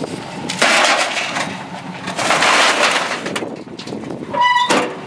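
A steel water heater tank being shoved across a pickup truck's metal bed, scraping twice. Near the end comes a brief squeal and a bang as the tailgate is swung shut.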